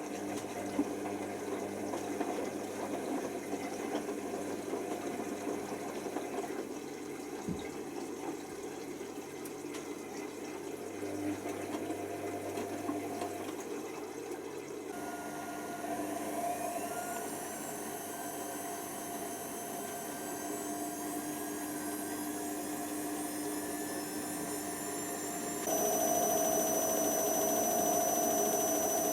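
Hoover Nextra HNWL7146 washer dryer running, first with water and pump noise, then its drum motor whining higher over a couple of seconds and levelling off as the drum spins up, louder again near the end.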